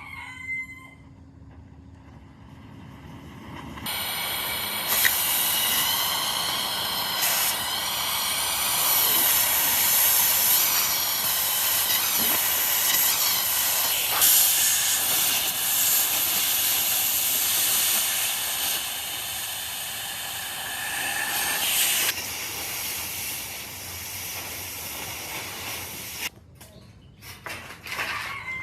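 A loud, steady hiss of a high-pressure spray. It starts about four seconds in, drops in level about twenty-two seconds in, and cuts off a few seconds later, with a few sharp ticks along the way.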